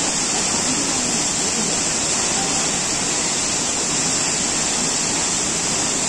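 Waterfall rushing steadily: an even, unbroken noise of falling water.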